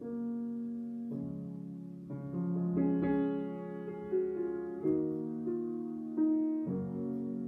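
Solo upright Steinway piano playing slow, held chords, a new chord struck every second or so, the notes ringing on between them.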